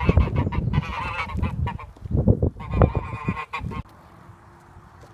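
A small flock of white domestic geese honking repeatedly, over low rumbling thumps. The honking cuts off abruptly about four seconds in, leaving only a faint steady hiss.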